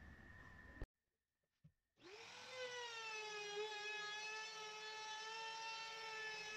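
A compact trim router starts about two seconds in and runs with a steady high whine while its bearing-guided pattern bit trims MDF along a template. This is a shallow first pass.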